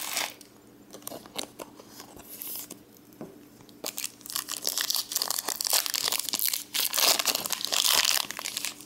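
Foil Pokémon booster pack wrapper crinkling in the hands and being torn open. Sparse light crackles at first, then from about halfway a louder, dense run of crinkling and tearing.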